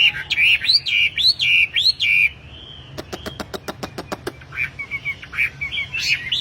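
A caged wambi songbird singing. It gives a run of arched, rising-and-falling whistled notes about twice a second, then a rapid dry rattle of a dozen or so clicks about three seconds in, then quick chirps again.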